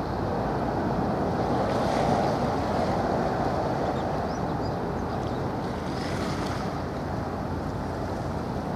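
Steady wind buffeting the microphone over the wash of choppy harbour water, swelling slightly about two seconds in.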